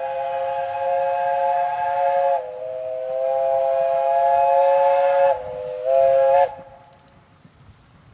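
Steam locomotive whistle on a 15-inch gauge line, one long blast of several tones sounding together, sounded as a warning for a level crossing. It lasts about six and a half seconds, drops slightly in pitch about two and a half seconds in, softens briefly near the end, then cuts off sharply.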